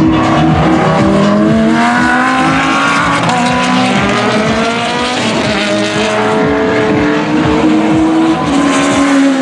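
Lamborghini Gallardo GT3 race car's 5.2-litre V10 accelerating on a track, rising in pitch and dropping back at each gear change several times.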